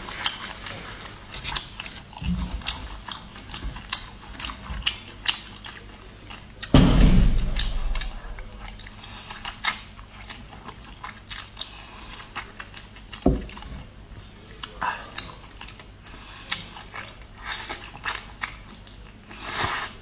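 Close-up eating sounds: instant noodles slurped and chewed, with small clicks of chopsticks and mouth noises, and one louder, deeper burst about seven seconds in.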